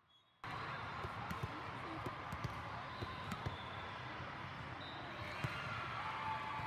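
Volleyball hall din: spectator and player chatter with scattered sharp volleyball hits and thuds, the loudest about five and a half seconds in. It opens with half a second of near silence before the hall noise cuts in.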